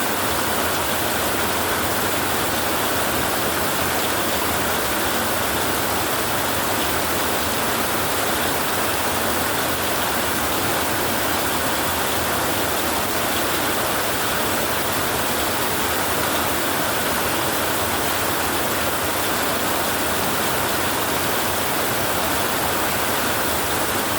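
Heavy rain falling on a tin roof: a steady, dense hiss with no let-up.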